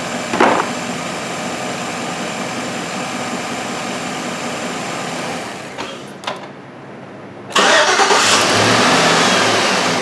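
2010 Chevrolet Silverado 1500's 5.3-litre V8 idling steadily. About six seconds in it drops away. At about seven and a half seconds it is cranked and restarts, running loudly.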